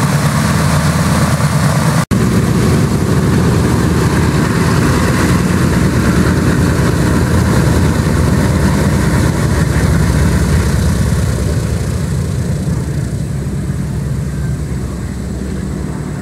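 Four Wright R-1820 Cyclone nine-cylinder radial engines of a B-17 Flying Fortress running at taxi power as the bomber rolls past. The sound cuts out for an instant about two seconds in, and it fades as the aircraft moves away over the last few seconds.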